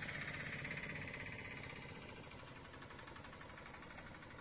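A faint motor running with a fast, even rattle, slowly fading away.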